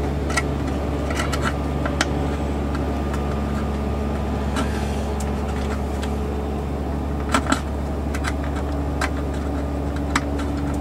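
A steady low electrical hum with a few faint tones above it. A handful of short, light clicks and scrapes come from a small metal hobby tool working at holes in a plastic model tank hull part, two close together about seven and a half seconds in.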